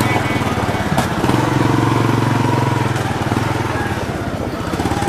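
Motorcycle engine running close by, its low pulsing note loudest from about a second in until nearly four seconds, over the general noise of a busy street.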